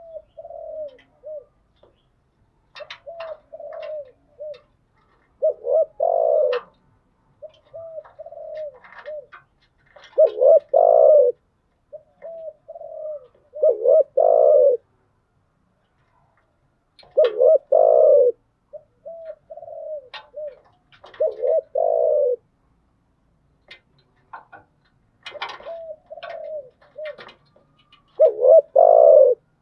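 Spotted dove cooing: repeated phrases of a few short coos building into louder, longer coos, one phrase every few seconds, with a pause of about two seconds around the middle.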